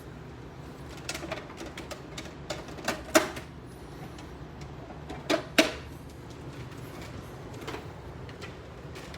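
Scattered clicks and knocks from handling a 1995 Hoover PowerDrive Supreme upright vacuum cleaner, with a few louder knocks about three seconds and five to six seconds in, over a faint low hum.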